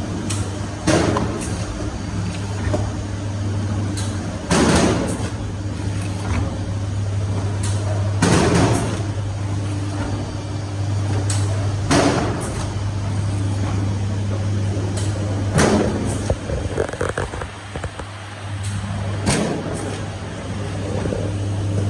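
Four-line cup filling machine running on test: a steady motor hum, with a sharp rush of hissing noise and clatter about every three and a half to four seconds as the machine cycles through each row of cups.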